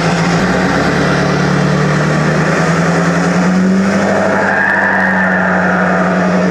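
Emissions-deleted Ford 6.7 L Powerstroke turbo-diesel V8 running with a steady engine drone. The revs rise slightly about halfway through, and a high turbo whistle comes in near the end.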